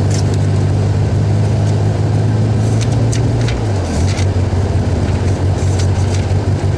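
Rally car engine idling steadily while the car stands still, heard from inside the cabin. Its pitch sags briefly about three and a half seconds in and recovers, with scattered light clicks and rattles over the hum.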